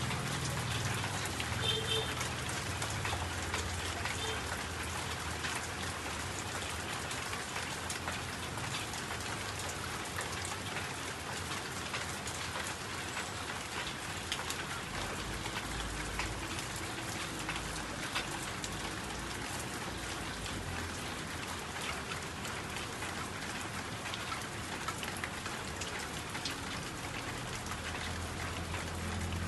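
Steady rain falling, a continuous hiss dense with the small ticks of single drops, with a low rumble rising briefly about halfway through.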